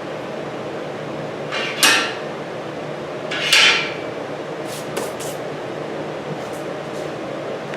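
Heavy steel bar clattering and scraping against a bench vise as it is set into the jaws: two louder metal clanks about two and three and a half seconds in, then a few light clicks, over a steady fan hum.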